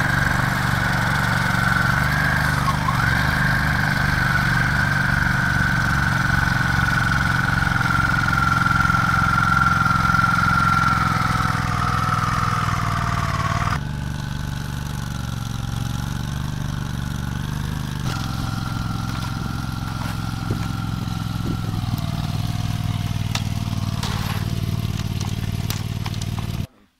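Engine of a Ditch Witch compact tracked cable plow running steadily under load as it pulls conduit through the ground, with a steady whine over the engine note. About halfway through it carries on a little quieter, and it cuts off just before the end.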